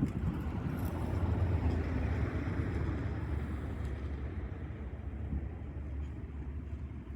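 Wind buffeting the microphone: a steady low rumble, with a broader rushing noise that swells over the first few seconds and then slowly dies down.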